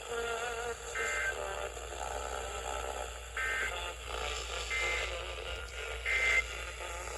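Emergency Alert System end-of-message data bursts: four short bursts of two-tone digital warble, about a third of a second each, marking the close of the severe thunderstorm warning. They play over faint background music and program audio.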